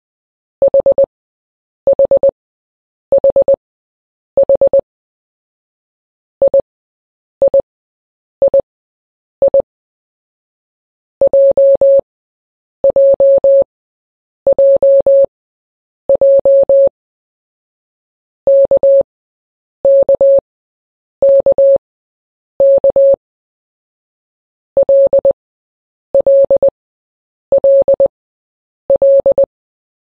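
Morse code sent as beeps of one steady tone, spelling out the letters H, I, J, K and L in turn, each letter keyed four times with short silences between. The H and I groups are quick short dits; the J, K and L groups are longer, with dashes mixed in.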